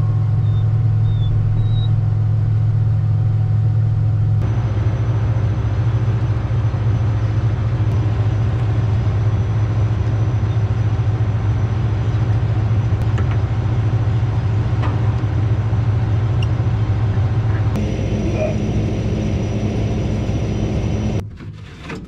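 John Deere combine running with a steady low drone. The drone changes slightly at about four and a half and eighteen seconds in, and drops away just before the end.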